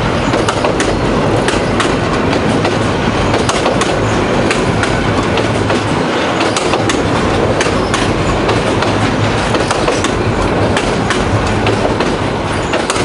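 Bangladesh Railway intercity passenger coaches rolling past at close range over an open-deck rail bridge: a loud, steady rumble of wheels on rail with scattered sharp clicks as the wheels cross rail joints.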